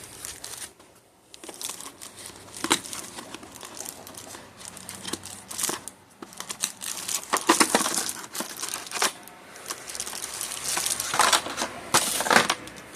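Plastic packaging crinkling and rustling as it is handled and pulled off a hair trimmer, in irregular bursts of crackle that are loudest in the second half.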